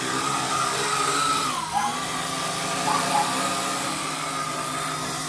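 Vivitar Skyview quadcopter drone's motors and propellers whining steadily as it hovers a few feet up. The pitch dips briefly and recovers about a second and a half in.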